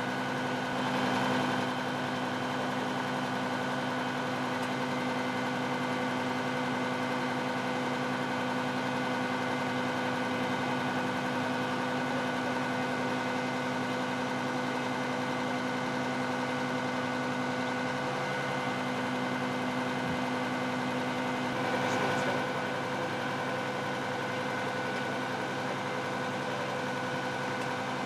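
Idling vehicle engine: a steady drone of several held tones, with a brief louder swell about a second in and again near the end.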